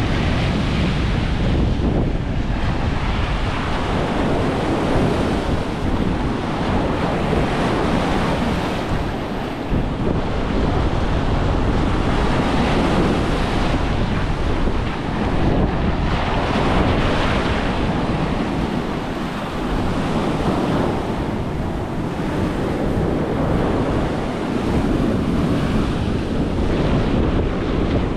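Ocean surf breaking and washing up the sand in foamy sheets, swelling and easing with each wave, with wind buffeting the microphone as a low rumble.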